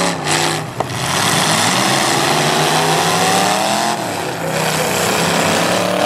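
Demolition derby cars' engines revving hard at high rpm, pitch rising and falling as the jammed cars push against each other with wheels spinning; a short sharp knock about a second in.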